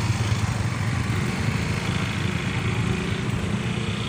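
Small motorcycle engine running steadily.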